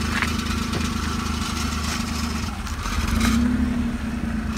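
Maruti 800's three-cylinder engine idling steadily through a custom valvetronic exhaust, its note rising slightly for a moment about three seconds in.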